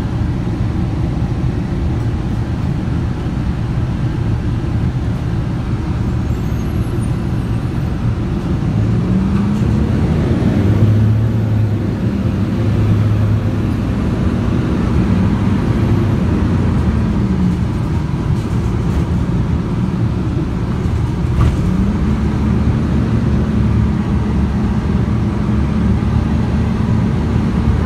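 Transit bus engine and road noise heard from inside the passenger cabin. The engine note climbs about nine seconds in and holds, drops partway through, then climbs again for a second stretch and falls near the end, as the bus speeds up twice.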